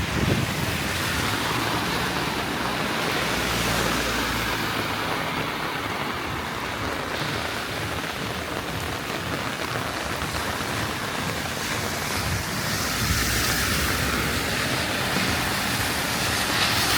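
Heavy rain pouring down with a steady hiss of falling and running water; the rush grows louder near the end.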